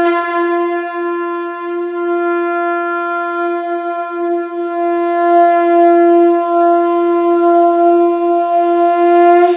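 Conch shell (shankh) blown in one long, steady note, a little louder in its second half.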